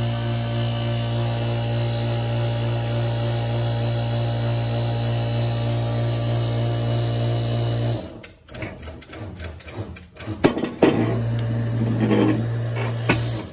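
The electric hydraulic pump of a 55-ton shop press hums steadily while the ram presses a camshaft timing gear and retainer onto the camshaft. The hum cuts out about two-thirds of the way through, a few sharp metal clicks and knocks follow, and the pump hums again briefly near the end.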